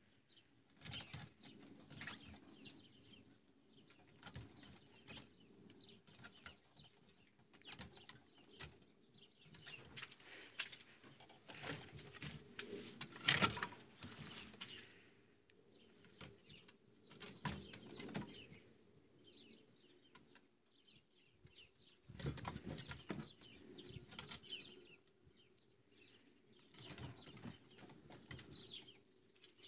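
Faint, intermittent scuffling and scratching of rabbits moving and mounting on a wooden hutch floor, with a few louder knocks, and faint bird calls.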